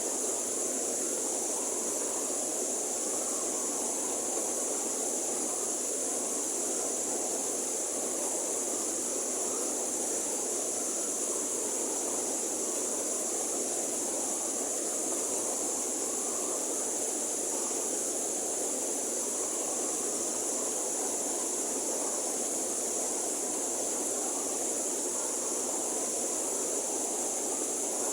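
River water rushing steadily over rocks, an even unbroken flow with a steady high hiss above it.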